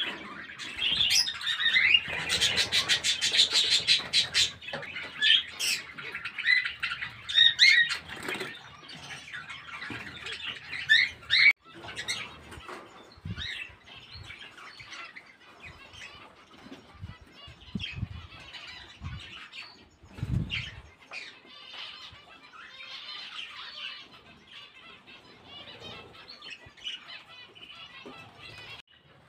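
Small aviary birds chirping and calling in quick, high, rising notes, busiest and loudest in the first dozen seconds and then sparser and fainter, with a burst of fluttering wings about two to four seconds in.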